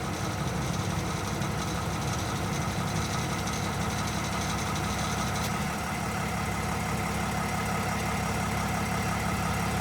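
Nissan Navara's V9X 3.0-litre V6 diesel idling steadily while the air conditioning is being switched off. With the AC on, the engine carries a rattle from an early-failing crankshaft pulley (harmonic balancer) under the compressor's load; switching the AC off takes that load away.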